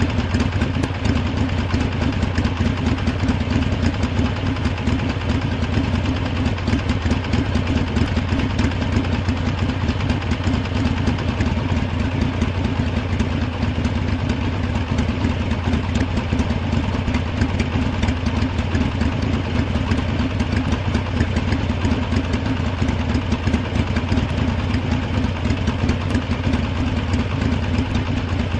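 Harley-Davidson V-twin motorcycle engine idling steadily, its rapid, even firing pulses unchanging throughout.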